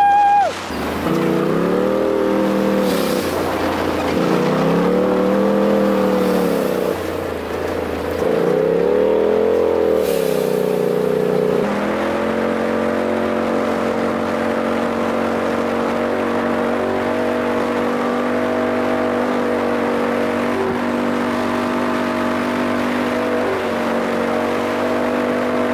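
Straight-piped 2018 Polaris RZR Turbo S's turbocharged twin-cylinder engine, heard from the cab while driving: its pitch rises and falls three times in the first dozen seconds, then holds steady at cruising speed.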